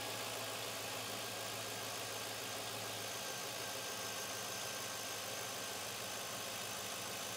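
2004 Chevy Tahoe's 5.3 L flex-fuel V8 idling steadily.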